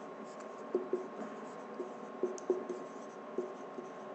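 Marker pen writing on a board: a handful of short, faint scratches and taps of the tip, spaced irregularly as letters are formed.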